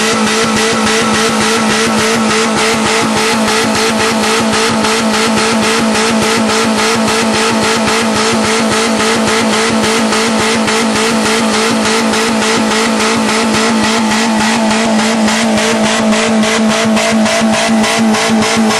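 Geo's 1.3-litre four-cylinder engine held flat out at high revs, a loud steady scream with a rapid even pulsing, its pitch rising slightly near the end. It is being run at full throttle on purpose to blow it up.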